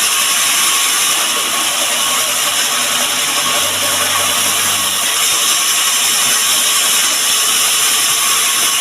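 Electric woodworking power tool running steadily, a loud even hiss without a break.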